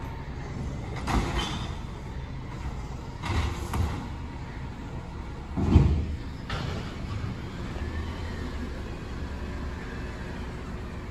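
Automated side-loader garbage truck running with a low engine rumble, with several metal clanks and bangs as its arm lifts and dumps a wheeled bin. The loudest bang comes about six seconds in.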